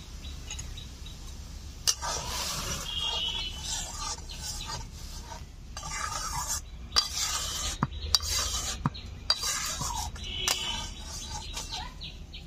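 A spoon stirring boiling lentil dal in a pot, rough scraping in spells with sharp clinks against the pot, starting about two seconds in.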